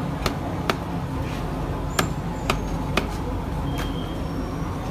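Large knife chopping fish on a wooden stump chopping block: six sharp knocks at irregular intervals of about half a second to a second, over a steady low background rumble.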